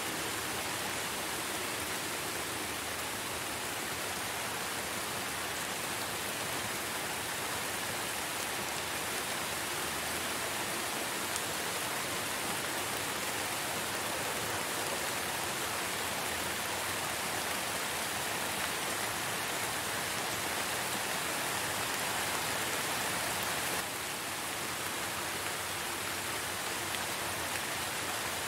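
Steady rain falling, an even hiss that dips slightly in loudness near the end.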